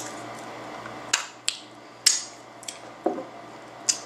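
Takeout food containers, plastic cutlery and a small bottle being handled at a table: a handful of sharp clicks and light clatters, about six in three seconds.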